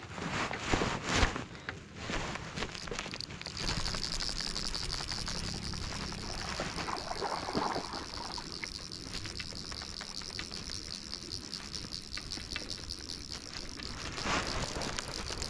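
Fly reel's click-and-pawl drag buzzing in a fast, steady ratchet from a few seconds in, as line works against it while a hooked fish is played. A few sharp knocks come before it starts.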